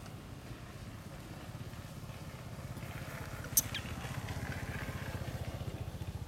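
Low, steady rumble of an idling motor engine made of rapid even pulses, with one sharp click about three and a half seconds in.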